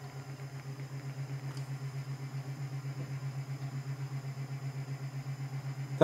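Roffie N600 white noise machine playing a fan-like sound sample through its speaker: a steady low hum that pulses about five times a second, rising in level over the first two seconds and then holding steady.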